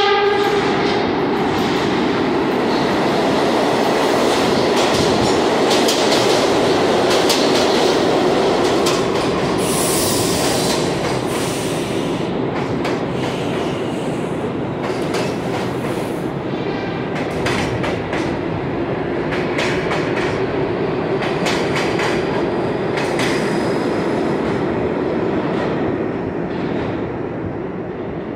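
A train passing close by, its wheels clattering over rail joints with a brief high wheel squeal about ten seconds in. The tail of a horn blast cuts off right at the start.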